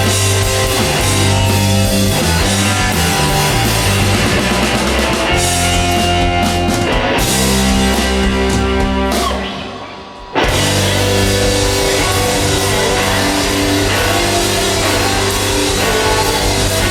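Live rock band with electric guitars, bass and drums playing a song. About nine seconds in the sound dies away briefly, then the full band comes back in all at once a second later.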